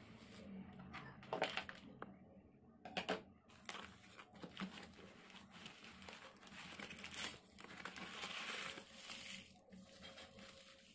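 Shredded paper packing rustling and crinkling as hands dig through it in a cardboard box. There are a couple of sharper, louder crackles in the first few seconds, and the rustling grows denser after about six seconds.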